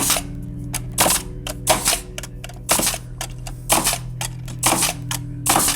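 Nails being driven through the gusset plates of a timber roof truss: sharp strikes at roughly one a second, about seven in all.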